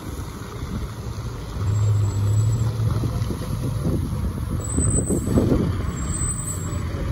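Fire truck's diesel engine running as the aerial ladder truck pulls away, a steady low drone that grows louder about two seconds in as it accelerates.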